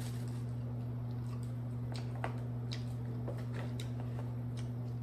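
Scattered light clicks and crinkles of a plastic takeout bag and ketchup packets being handled, over a steady hum.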